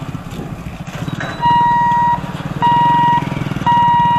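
Level-crossing warning beeper sounding as the electric boom barriers lift: a steady high beep, repeating about once a second, three times from about a second and a half in. Under it, the low running of idling engines.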